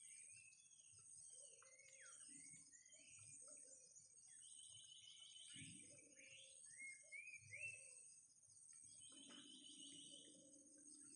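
Faint bird chirps and short rapid trills, some gliding up or down, with soft low calls among them, over a steady high-pitched insect drone.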